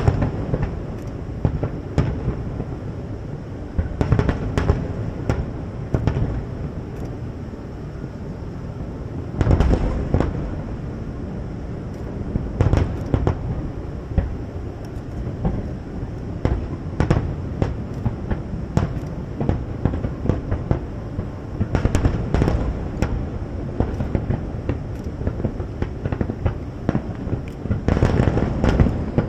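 Large aerial fireworks display: a fast string of shell bursts and sharp cracks over a continuous low rumble, with heavier volleys several times, the loudest about ten seconds in and near the end.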